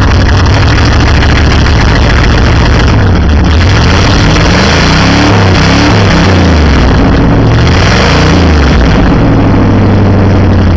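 Chevrolet Scottsdale pickup's 350 V8 running loud and open through an exhaust rusted off at the Y-pipe, in effect a straight pipe. It idles, is revved up and down several times from about three to nine seconds in, then settles back to idle.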